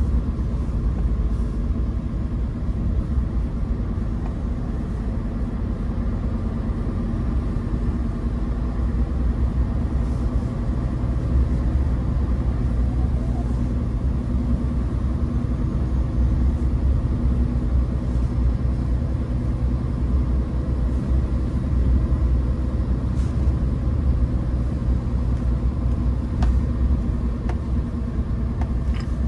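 Scania P410 truck's straight-six diesel engine running steadily at cruising speed, heard from inside the cab, with a constant low rumble from the truck rolling over the snowy road.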